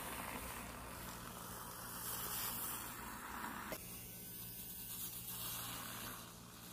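Handheld battery-powered milk frother whirring steadily as it mixes a mug of coffee, a small-motor hum. About four seconds in, the hiss above the hum drops away.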